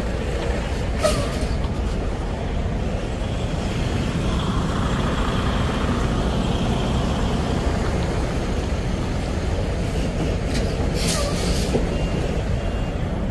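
Semi-truck diesel engines running with a steady low rumble, with two short air-brake hisses, about a second in and again near the end.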